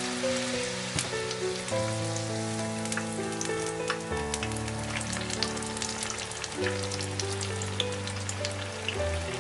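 Battered onion rings deep-frying in hot oil: a steady sizzle with many small crackling pops. Soft background music with held chords plays alongside.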